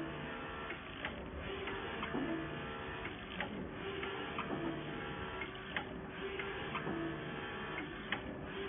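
GraSmart 6090 UV flatbed printer printing, its print-head carriage running back and forth. A steady motor hum swells and drops with each pass every second or so, with scattered light clicks.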